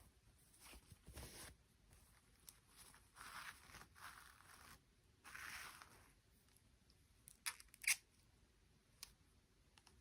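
Faint handling sounds: several short bouts of rustling, tearing or scraping, then a few sharp clicks, the loudest about eight seconds in.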